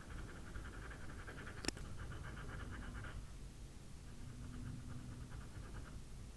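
Faint, fast scratching of pastel pencil shading strokes on Pastelmat paper, in two runs with a pause between, and a single light click about two seconds in.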